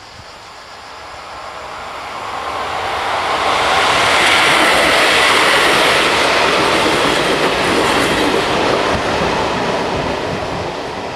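Trenitalia regional passenger train passing close by, the rolling noise of its wheels on the rails swelling to a peak about four seconds in and fading over the following seconds.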